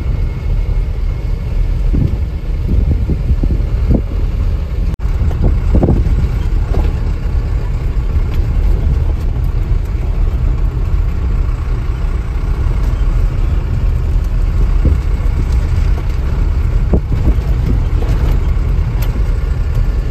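Truck engine and road rumble heard inside the cab while driving on a dirt road, with a few short knocks.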